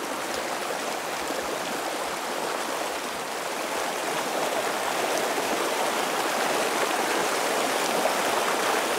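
Small rocky mountain stream rushing and splashing over boulders through riffles and pocket water: a steady, even rush of water that grows a little louder over the second half.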